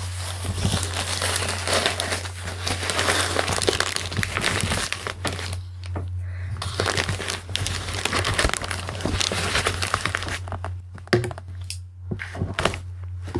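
Postal packaging being opened by hand: paper and plastic wrapping crinkling, crackling and tearing in dense runs, with short pauses about six seconds in and again near the end.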